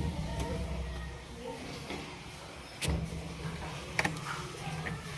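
Drain motor of an LG inverter top-load washing machine humming as it pulls the drain valve and clutch lever back. The hum comes in two stretches, each starting with a click.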